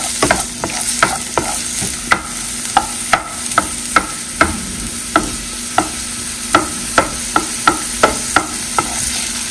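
Chopped onion, garlic and green onion sizzling in olive oil in a frying pan: a sofrito starting to fry. A wooden spatula stirs them, knocking and scraping against the pan about two or three times a second.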